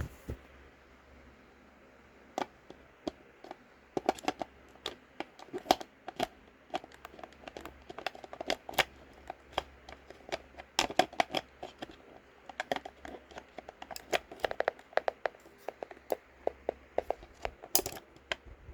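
Irregular sharp clicks and taps of a weather radio being handled.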